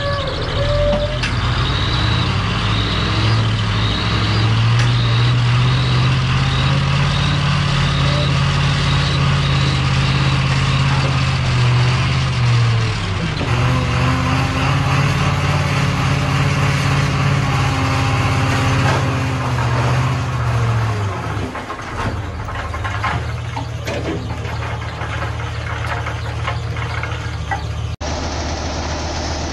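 Heavy truck engine running steadily, its note changing at a few points. A steady series of short high beeps sounds over the first ten seconds or so.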